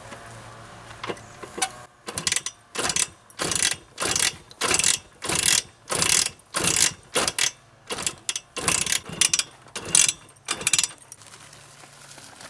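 Simson SR50 scooter being kick-started over and over, the kickstart rasping about twice a second, with the 50 cc two-stroke engine not catching.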